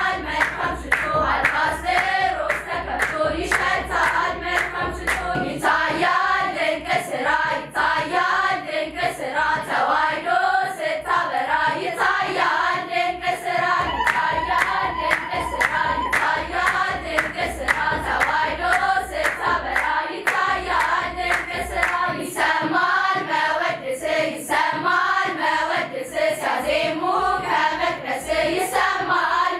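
A girls' choir singing an Ethiopian Orthodox hymn (mezmur) together, with steady rhythmic hand clapping and a low drum beat.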